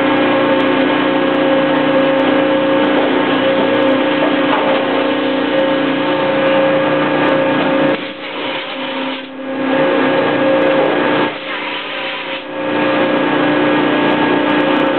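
Steady hum of running industrial machinery, with several steady tones under a constant noise. It drops away briefly twice in the second half.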